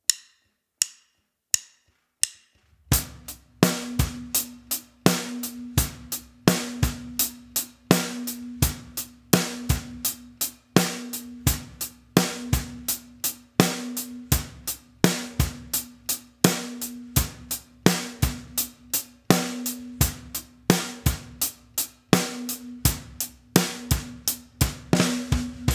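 Drum kit playing a simple eighth-note rock groove at song tempo, after four count-in clicks: steady eighth notes on the closed hi-hat, bass drum on 1 and on 2-and, snare on 2 and 4. It stops near the end on a cymbal that rings on.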